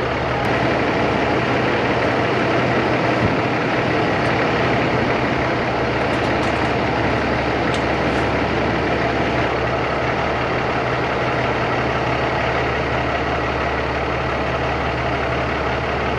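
Semi-truck diesel engine idling with a steady low hum and an even rushing noise over it.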